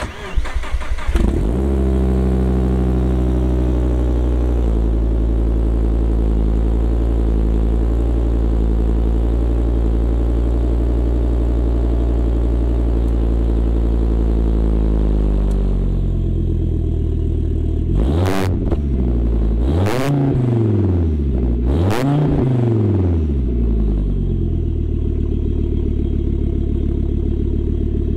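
Volvo S60R's turbocharged inline-five starting through its 3-inch catted downpipe and IPD 3-inch catback exhaust, heard at the tailpipes. About a second in it fires and settles into a high idle that drops a little twice. Two-thirds of the way through it is revved three times in quick succession, then returns to a steady idle.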